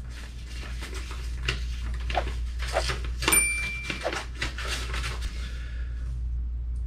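Paper rustling and crinkling as letters, envelopes and stickers are handled, in short irregular rustles and taps over a steady low room hum. A brief high squeak comes about halfway through.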